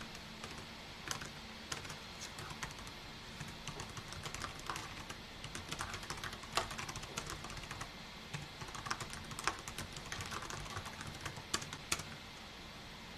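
Typing on a computer keyboard: irregular runs of key clicks with a few sharper, louder strokes, stopping shortly before the end.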